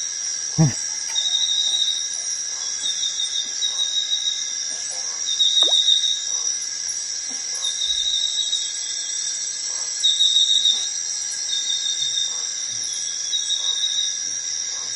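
Tropical forest insects: a steady high drone, with a chirping insect repeating every second or so. Soft eating sounds as noodles are eaten, faint beneath the insects.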